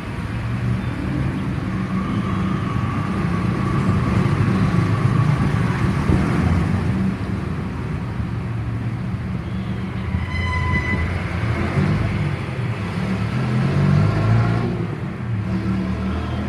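Steady, loud low rumble with a brief high tone about ten seconds in.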